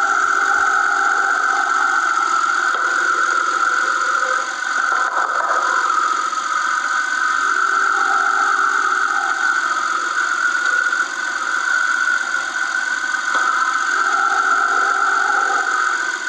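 Peugeot car engine idling steadily, with a constant high-pitched tone over the running.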